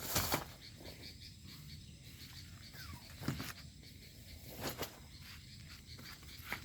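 Faint chirring of night insects, with a few scattered short knocks and rustles.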